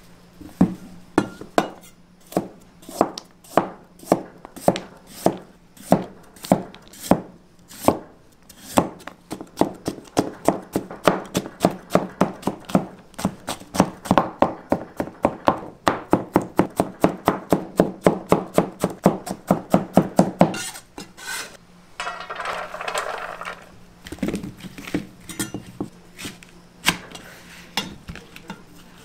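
A Chinese cleaver chopping a carrot on a white plastic cutting board, each stroke a sharp knock of blade on board. The strokes come at a slow, even pace at first, then quicken to about three or four a second as the carrot is julienned. The chopping stops about twenty seconds in, and a few scattered knocks follow.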